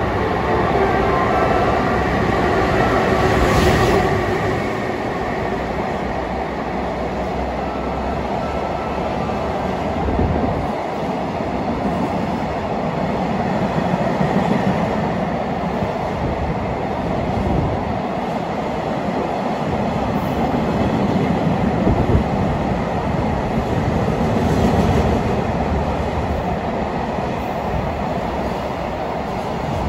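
EF510 electric locomotive hauling a long freight train of container wagons through the station. It is loudest as the locomotive passes about four seconds in, then the wagons run past in a continuous rumble of wheels on rail.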